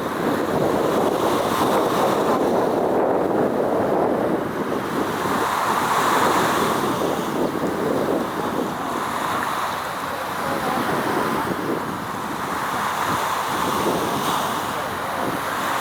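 Wind buffeting the microphone over a steady rush of waves, swelling and easing every few seconds.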